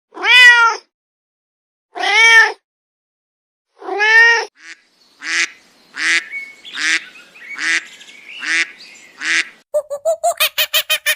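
Waterfowl calling: three long, arched honks about two seconds apart, then a run of six shorter, quicker quacks.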